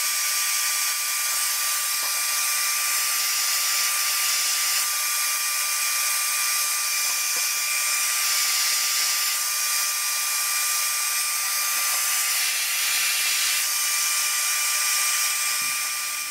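Handheld hairdryer running on its warm setting: a steady rushing hiss with a thin high whine from its motor, switching off near the end. It is heating the corners of a carbon-fibre laptop skin so the skin shrinks into the corners without ripples.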